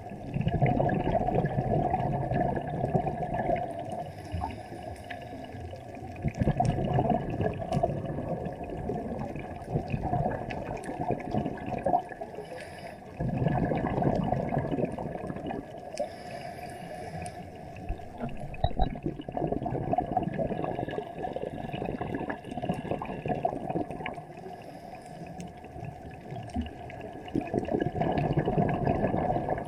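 Underwater water noise: a muffled rushing and bubbling that swells in bursts of two to three seconds, about every six seconds.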